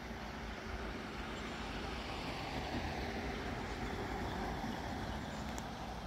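A road vehicle passing on a nearby street: steady tyre and engine noise that swells over the first few seconds and then holds.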